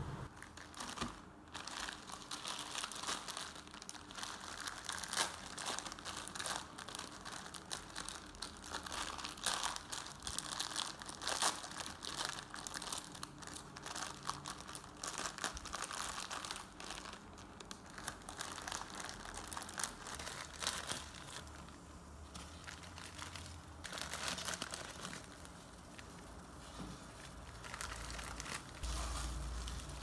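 Plastic instant-noodle packets crinkling as they are torn open and handled by hand, a dense run of sharp crackles.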